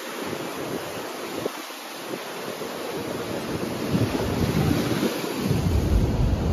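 Sea surf breaking and washing against the boulders of a rock seawall, with wind rumbling on the microphone; it grows louder in the second half.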